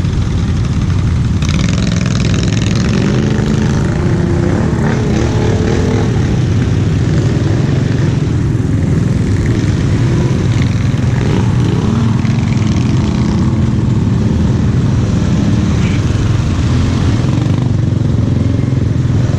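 ATV engine running steadily as the machine is ridden, its pitch rising and falling a little with the throttle.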